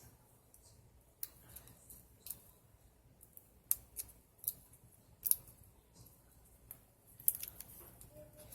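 Scissors snipping paper in short, irregularly spaced cuts.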